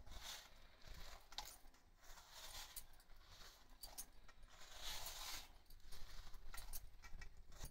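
Faint sounds of a hand mixing soft bhatura dough in a stainless steel bowl, with scattered light metallic clinks from metal bangles on the wrist.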